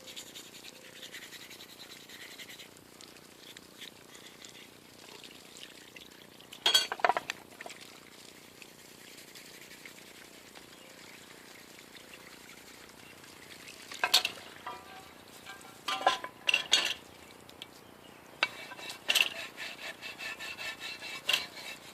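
A metal tool scraping and clinking against metal lathe parts while softened paint stripper is cleaned off them. It comes in a few short spells about 7, 14 and 16 to 17 seconds in, then a run of quick scrapes near the end, with quiet room noise between.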